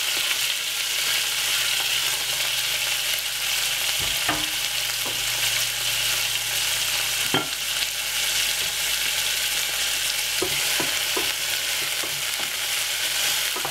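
Chopped onion, sweet peppers and scotch bonnet sizzling steadily in a little hot oil in a saucepan, with a few brief light knocks. Near the end a wooden spoon stirs the vegetables in the pan.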